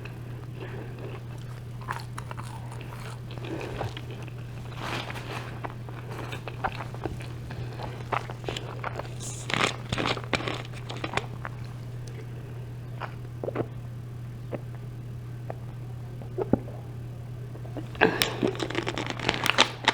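Close-miked chewing and crunching of a gyro with crisp vegetables: scattered crunches and mouth sounds over a steady low hum, with a louder cluster of sounds near the end.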